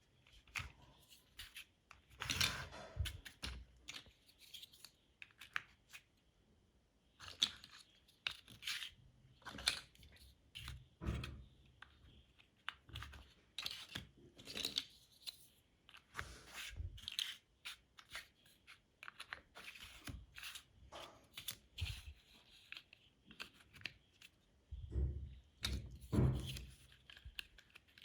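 Plastic LEGO bricks being handled and pressed together: a run of irregular small clicks, scrapes and rustles, with a few heavier knocks.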